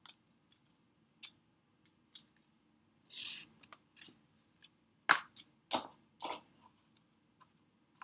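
Scattered light clicks and taps of a small craft tool and a clear plastic window sheet being handled on a craft mat, with a brief rustle about three seconds in. The sharpest click comes about five seconds in.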